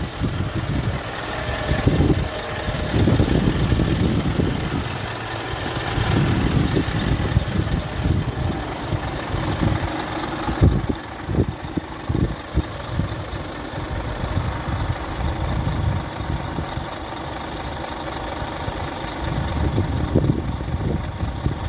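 Scania R440 truck's 13-litre six-cylinder diesel engine idling steadily, with wind buffeting the microphone in uneven low gusts.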